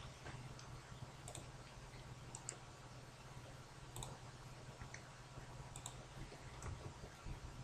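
Faint, scattered computer mouse clicks, several a second or so apart, over a low steady hum.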